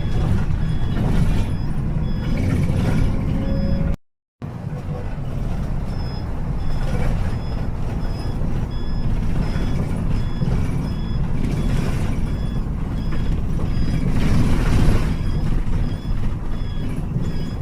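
The 快捷6號 vehicle running with a loud, uneven rumble and rattle, the abnormal noise that goes with its severe shaking, while a high electronic beep repeats about three times every two seconds, like a reversing warning. The sound cuts out completely for about half a second around four seconds in.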